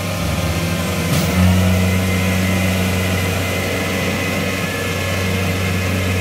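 Kubota rice combine harvester's diesel engine running hard under load as its tracks churn through deep, waterlogged paddy mud. The machine is bogging down, sinking deeper. About a second and a half in, after a brief click, the engine note swells louder and holds there.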